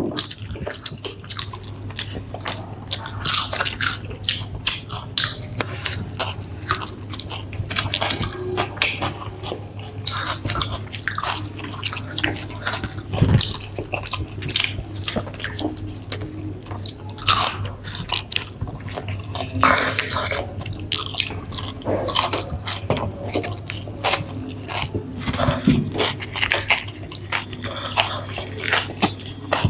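People chewing and biting into burgers and french fries close to the microphone: irregular wet chewing and crunchy bites, over a steady low hum.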